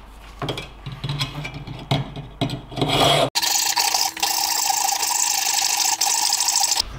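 Hacksaw cutting through a flanged metal exhaust pipe elbow, rasping in strokes about twice a second. About halfway through the sound switches abruptly to a continuous, even rasp with a faint hum.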